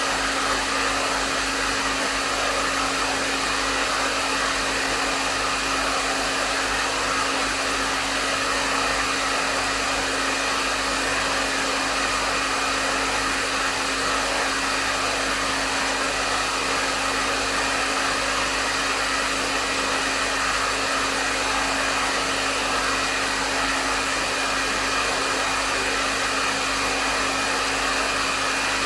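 Hair dryer running steadily: an even rush of air over the hum of the motor, with a steady low tone and a fainter high one, unchanging throughout.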